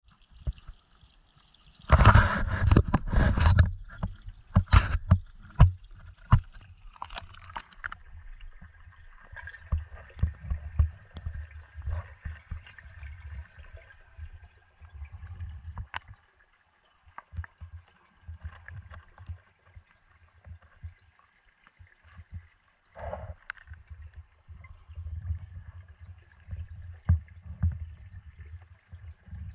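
Action camera dipped into a garden fish pond: loud splashing for about two seconds, a few more splashes, then muffled underwater sound of low knocks and rumbles with a faint steady whine, likely from the submerged pond pump.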